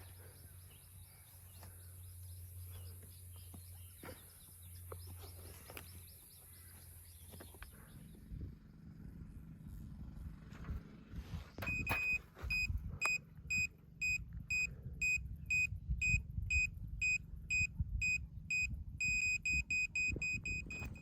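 Earth-working machine's engine rumbling with an electronic warning beeper. The beeping starts about halfway in at roughly two beeps a second and quickens near the end.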